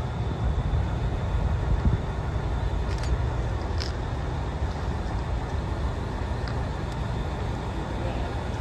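Diesel engines of a convoy of on-track rail maintenance machines running as the machines creep slowly along the track, a steady low rumble with a few faint clicks.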